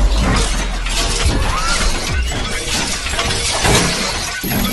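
Sound effects of an animated logo reveal: loud, dense crackling like glass shattering and debris breaking up.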